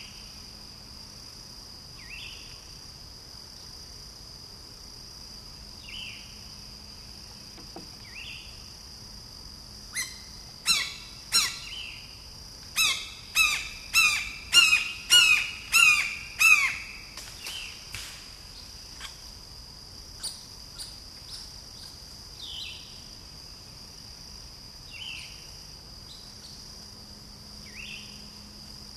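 Red-shouldered hawk calling: a run of about eleven loud, repeated kee-ah calls, each dropping at the end, about two a second, trailing off into fainter calls.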